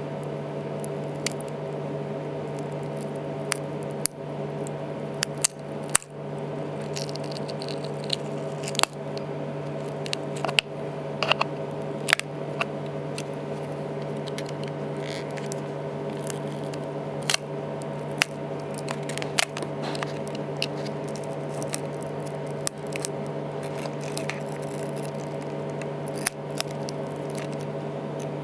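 Irregular small clicks and taps of tools and parts being handled while an iPhone 3GS is taken apart for a battery swap, over a steady electrical hum.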